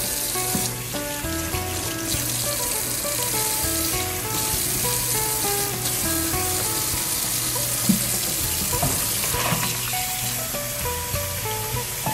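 Tap water running steadily into a plastic bowl in a stainless steel sink while raw pork belly is rinsed and rubbed by hand, with a couple of brief splashes near the end. Background music plays with it.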